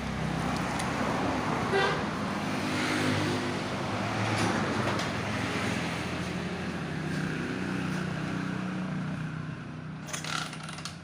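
A motor vehicle engine running steadily, with a few sharp clicks near the end.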